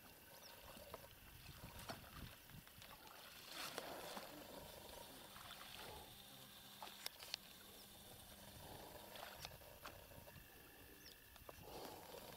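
Near silence: faint outdoor stillness with a few soft ticks scattered through it.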